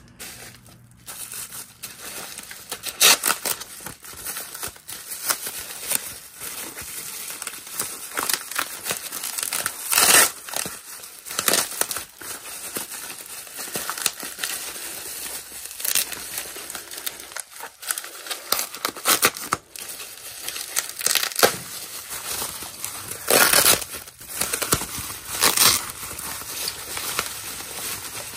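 Bubble wrap crinkling and crackling as hands unwrap a small boxed knife, with several louder rips of blue tape being pulled off.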